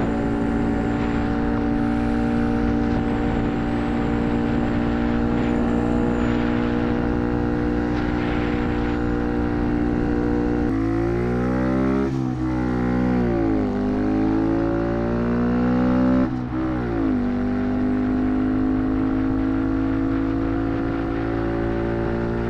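Honda Monkey's single-cylinder four-stroke engine running at a steady cruise through a Yoshimura exhaust with its spark arrestor fitted. Around the middle, for about six seconds, the steady tone breaks up into tones shifting up and down in pitch as an oncoming car passes. The steady note then returns.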